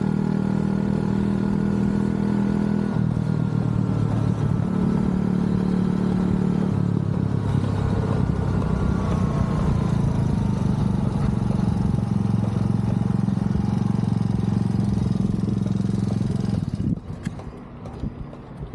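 Small engine of a motorized BMX bike running steadily under way, its pitch sagging slightly partway through. Near the end the engine sound stops, and a few clicks and knocks follow.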